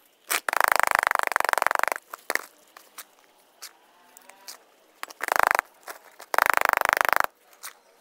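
A small garden trowel scraping and scooping gritty potting mix of peat and perlite against a plastic basin, in three rasping bursts: a long one near the start and two shorter ones in the second half.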